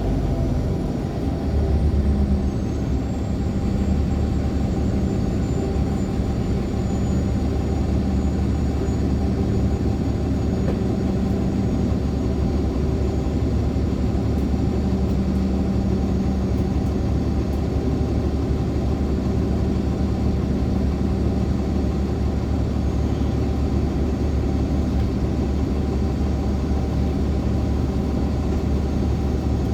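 Steady low drone of an articulated NOVA LFS hybrid bus's Cummins ISL9 diesel engine and driveline, heard on board while the bus is under way. A faint high whine slowly falls in pitch over the first few seconds.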